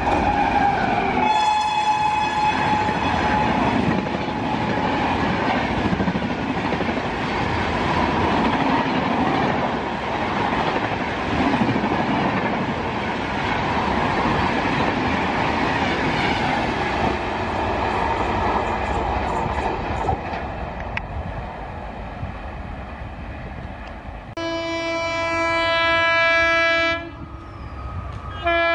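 Electric locomotive horn sounding as the engine passes at speed, then a long passenger train's coaches rumbling and clattering past on the rails for about twenty seconds. Near the end a lower-pitched train horn sounds for a couple of seconds.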